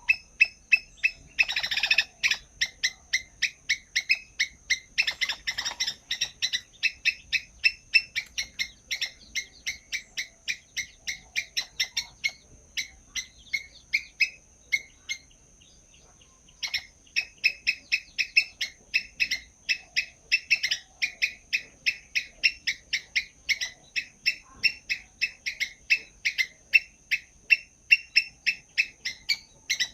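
A bird chirping rapidly and repeatedly, about three short chirps a second, breaking off for a couple of seconds about halfway through. A steady high-pitched tone sits underneath, and there are two brief noisy bursts, about two and five seconds in.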